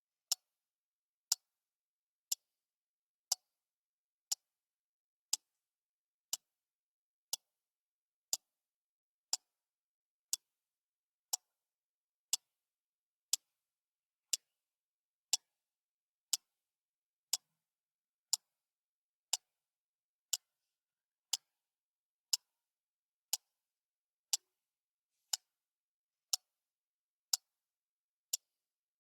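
Clock ticking steadily, one sharp tick a second, with silence between the ticks.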